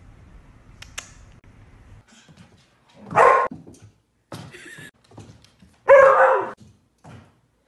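A dog barking: two loud, drawn-out barks about three seconds apart, with a quieter bark between them.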